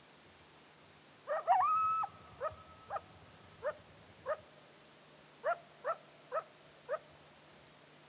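Animal calls: a drawn-out whining note about a second and a half in, then a run of eight short yelps about half a second apart.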